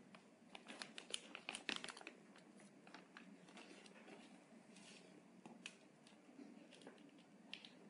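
Faint crinkling of a plastic bag and light clicks as a three-wire brake pad wear sensor and its connector are handled, busiest in the first two seconds, then a few scattered clicks.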